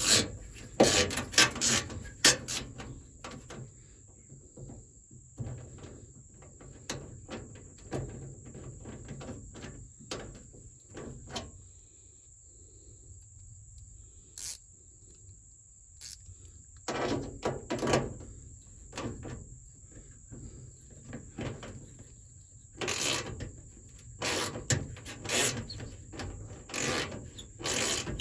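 Hand tools and metal parts being worked in a pickup truck door: irregular clicks, knocks and scraping as screws are turned and the handle hardware is handled, with a quieter pause in the middle. A faint steady high-pitched tone runs underneath.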